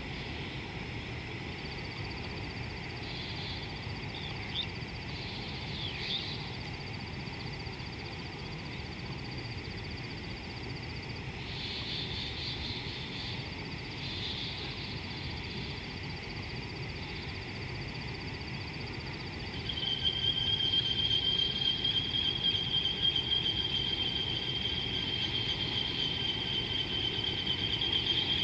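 Outdoor bush ambience with a steady low rumble of background noise and a few short bird chirps. About two-thirds of the way through, a loud, steady, high-pitched buzzing trill starts and keeps going.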